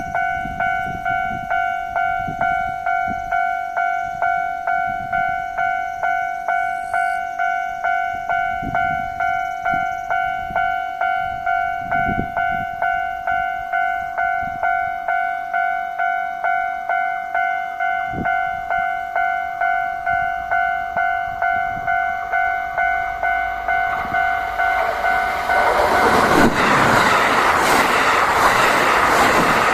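Japanese electronic level-crossing bell ringing steadily at a little under two strokes a second. About 25 seconds in, the Kintetsu 80000 series Hinotori limited express electric train arrives and passes loudly over the crossing, its running noise and wheel clatter rising over the bell.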